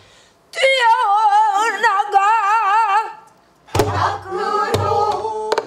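Pansori singing: a long held note with heavy vibrato. Then two strikes on a buk barrel drum, about a second apart, as the singing goes on.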